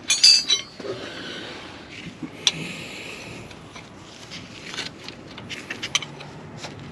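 Metallic clicks and clinks of hand tools working a starter mounting bolt loose: a quick run of ringing clinks at the start, a single click about halfway through the first three seconds, then scattered light clicks later on.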